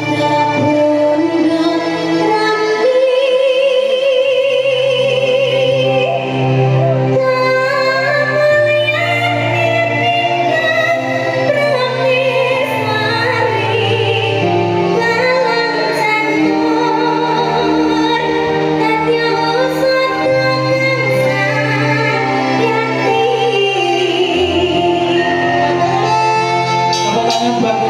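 Live campursari music: a woman's voice sings a wavering, vibrato-laden melody over a band mixing Javanese gamelan with Western instruments and a steady bass line.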